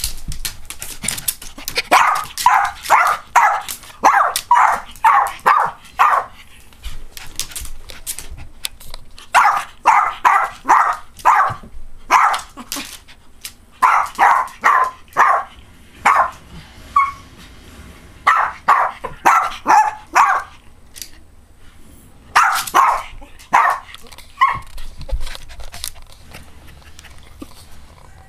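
Yorkshire terrier barking in five quick bouts of several barks each, about two to three barks a second, with pauses of a few seconds between bouts. Sharp clicks and knocks come in between the barks.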